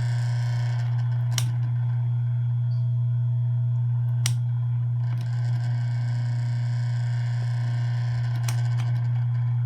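Asahi PF 620 electric fan running with a loud, steady motor hum and a few sharp rattling clicks, four in all. The rattle persists even though the owner has fitted a new stator and capacitor and sanded the shaft.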